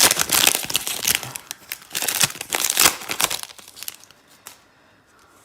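Foil Pokémon booster pack wrapper crinkling and tearing as it is opened by hand, a dense run of crackles that stops about three and a half seconds in.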